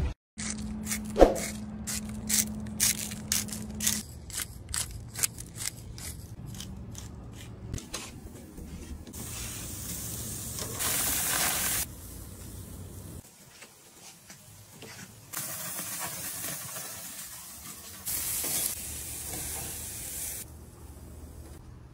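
Steaks sizzling on a hot grill, a steady hiss that comes and goes in several short stretches. A run of sharp clicks and taps, fitting metal tongs handling the meat, comes in the first several seconds.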